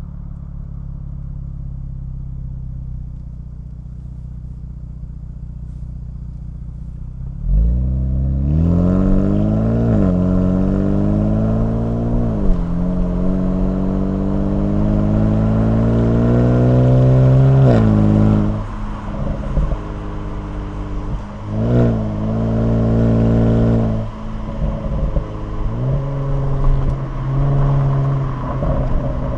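Kia Stinger GT2's tuned 3.3-litre twin-turbo V6 through an MBRP cat-back exhaust: a steady drone at cruise, then about a quarter of the way in a hard pull with the engine note climbing, dropping at a gear change and climbing again. It lets off about two-thirds of the way in, with a few short blips and sharp pops and crackles on the overrun.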